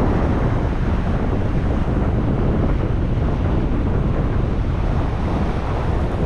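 Wind buffeting the microphone over a steady wash of surf surging against the rocks below.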